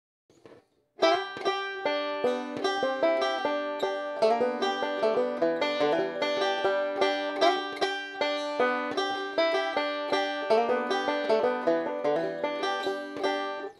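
Resonator banjo picked in a fast, steady run of notes, recorded through a Behringer SL-75C microphone. The playing starts about a second in.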